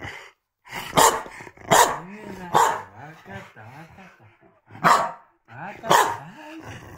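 A corgi barking five times in short, sharp barks, three in quick succession near the start and two more later. These are attention-seeking barks while its owners are talking.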